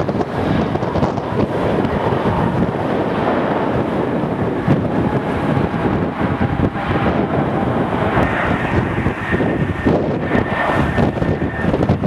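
Strong wind buffeting the microphone: a loud, ragged, rushing noise throughout. Under it, a faint steady whine comes in during the second half, from the jet engines of a landing Airbus A320-family airliner.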